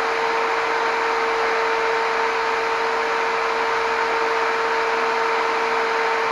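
Electric power tool motor running at a steady speed: an even whine held at one pitch over a loud hiss, with no change in load.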